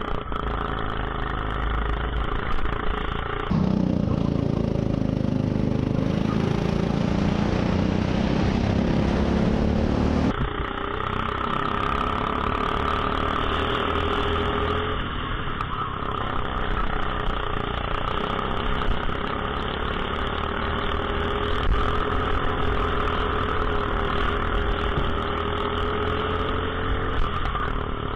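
Rental go-kart engine running under throttle, its pitch rising and falling as the kart laps the track. It gets louder and hissier for several seconds about four seconds in, then settles back.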